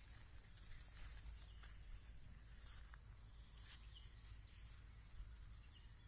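Faint field ambience: a steady high-pitched insect drone, with a low rumble of wind or handling on the microphone and a few faint ticks.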